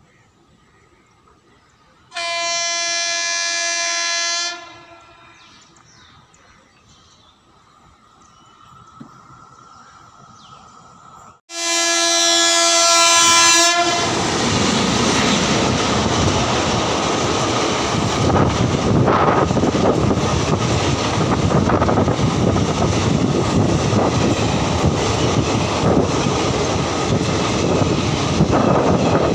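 Express train's electric locomotive sounds its horn twice as it approaches, a blast of about two seconds, then another about nine seconds later. The locomotive and coaches then run through the station at speed: a loud steady rush of wheels on rails with an occasional clack.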